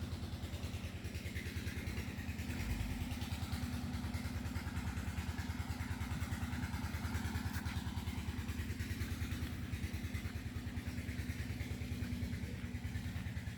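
A generator set (genset) running steadily, with a fast even chugging, the 'tetek-tetek' beat of its engine.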